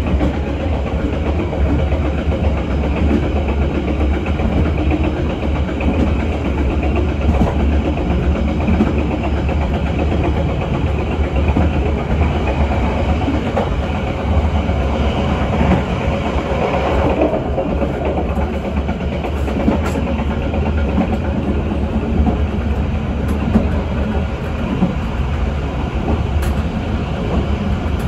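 Steady running noise of the Bengawan passenger train heard from its rear coach: wheels on rail with a deep hum, a few sharp clicks, and a brief swell of louder rushing about halfway through.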